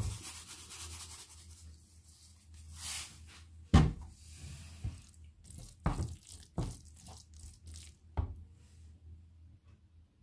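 Wooden spatula stirring and scraping mashed fava beans around a nonstick frying pan, with a few sharp knocks of the spatula against the pan.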